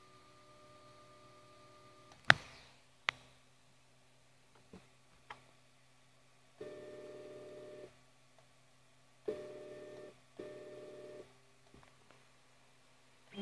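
Flashforge Creator 3D printer's stepper motors humming at a steady pitch in short runs of about a second each, stopping and starting abruptly, with two sharp clicks a few seconds in.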